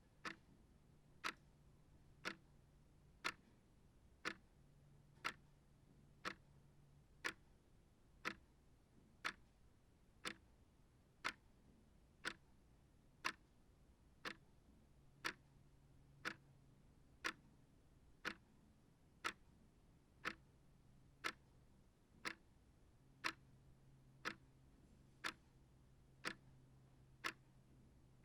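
Small shelf clock ticking steadily, one sharp tick about every second.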